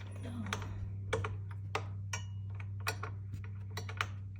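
Irregular light clicks and taps of metal parts being handled as a crash-bar bolt is worked at a threaded hole on a Honda ADV160 scooter. The bolt will not start cleanly and is at risk of cross-threading. A steady low hum sits underneath.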